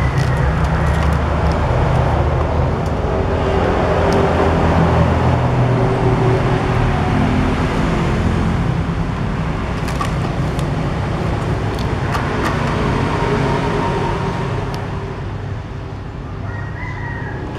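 Steady rumble of motor traffic, its engine tones shifting up and down, with a few light clicks about ten and twelve seconds in.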